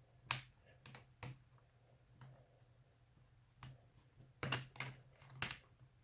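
Short, sharp clicks and snaps as the bottom cover of an HP Spectre x360 laptop is pried loose by fingernails at the back edge. About seven clicks, a few scattered early on and several close together in the last second and a half.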